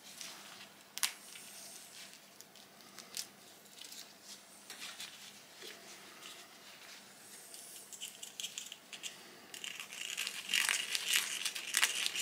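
Textured disposable gloves rustling and crinkling as fingers handle a thin metal shim washer, with scattered small clicks, the handling noise getting busier near the end.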